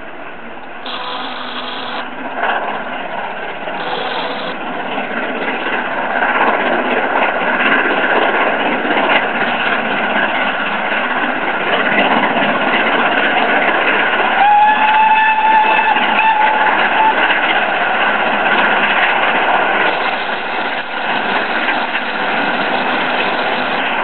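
GWR King class 4-6-0 steam locomotive working an excursion train past, its exhaust and the rumble of the train growing louder over the first few seconds and holding steady. About two-thirds of the way through, a held tone sounds for a couple of seconds.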